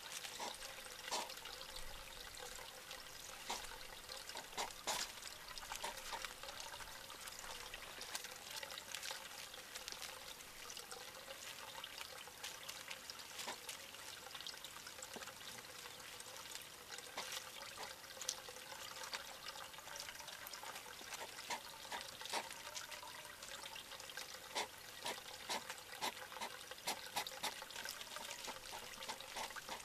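Steady trickling of water, with frequent irregular short crunching clicks from a European hedgehog chewing dry food pellets.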